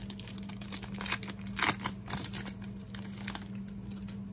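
Wrapper of a 2020 Panini Prestige football card pack crinkling as it is torn open and the cards are slid out, with a cluster of louder crackles about a second and a half in. The crinkling dies away after about three and a half seconds.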